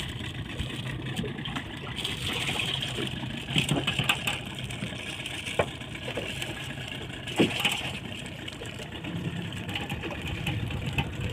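Small wooden fishing boat's engine running steadily while trolling, with water hissing past the hull. A few short knocks sound partway through.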